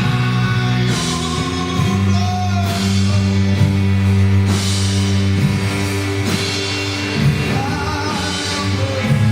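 Live church band music: held low chords changing about a second in, with drums and cymbal splashes every second or two, and a voice singing over it.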